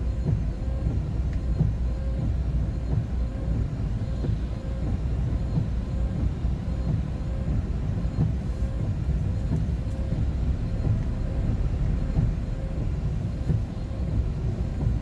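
Steady low rumble of a vehicle cruising on the highway, engine and road noise as heard from inside the cab.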